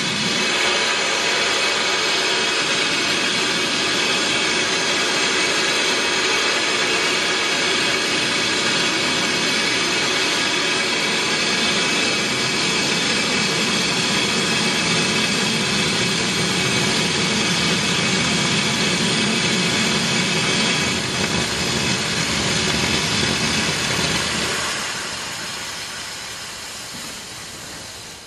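Steam hissing steadily from the standing SP&S 700, a 4-8-4 Northern-type steam locomotive, as it vents steam around its front end. The hiss fades down over the last few seconds.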